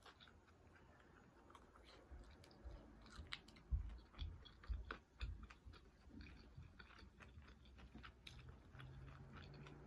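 Faint close-miked chewing and biting, with soft wet mouth clicks and a few low thuds in the middle.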